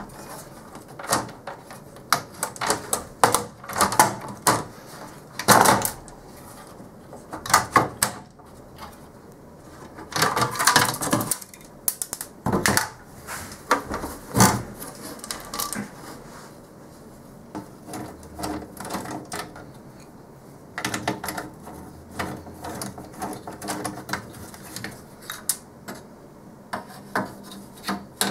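Irregular clicks, knocks and short rattles of circuit boards and metal parts being handled and lifted out of a network switch's sheet-metal chassis during disassembly, with a denser clatter about ten seconds in and again toward the end.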